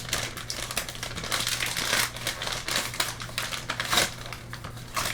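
Plastic Kit Kat wrapper crinkling as it is handled and opened, a dense run of irregular crackles.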